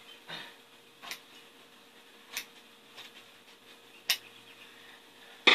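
Metal shears cutting through vinyl upholstery: separate sharp snips about a second apart, with a louder knock at the very end.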